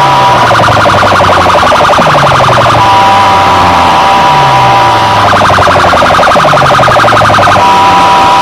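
Very loud, siren-like electronic effect blasted through DJ sound-system loudspeakers. A steady high two-tone hoot alternates every couple of seconds with a fast warbling pulse, over repeated falling bass sweeps.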